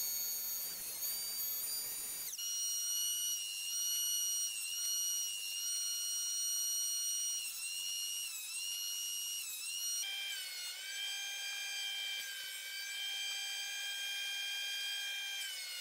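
Sped-up timelapse sound of a compact JET jointer-planer running: a high, steady whine that dips briefly several times as boards pass through the cutter. The pitch jumps abruptly about two seconds in and again about ten seconds in, where the timelapse cuts.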